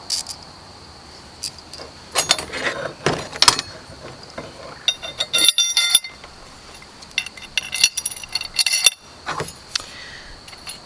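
Small metal hardware (bolts, nuts and flat washers for an Alaskan chainsaw mill) being handled and fitted: scattered clicks and two short bouts of ringing clinks and jangling.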